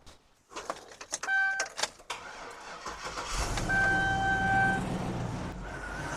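GMC Yukon Denali being jump-started from a Noco Genius GB40 after its battery went flat: a few clicks and a short beep, then a bit over three seconds in the engine catches and keeps running, with a steady chime tone sounding over it for about a second.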